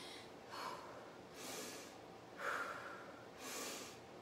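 A woman breathing hard to recover after strenuous exercise, about four loud breaths roughly a second apart.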